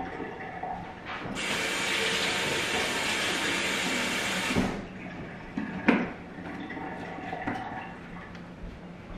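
Kitchen faucet running into the sink as a steady hiss for about three seconds, then shut off abruptly. Two short knocks follow about a second apart.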